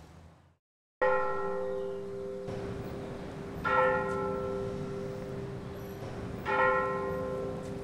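A church bell tolls three times, slowly, about two and a half seconds apart, the first stroke about a second in; each stroke rings on and fades slowly into the next.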